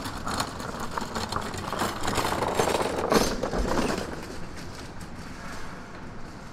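Wheels of a pushed hand cart rattling fast over brick paving as it passes close by, loudest about three seconds in and then fading.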